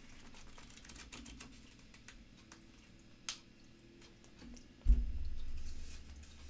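Glossy catalog pages being handled: soft paper rustles and many small clicks, with one sharper click a little past three seconds. About five seconds in comes a low thump with a brief low rumble.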